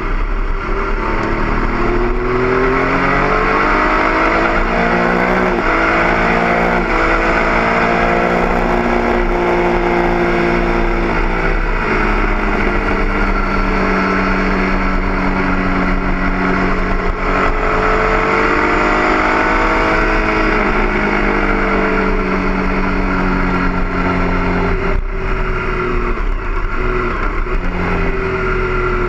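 Stock 2008 Triumph Daytona 675's three-cylinder engine ridden on track, its pitch climbing, stepping with gear changes and easing off again, over steady wind rush.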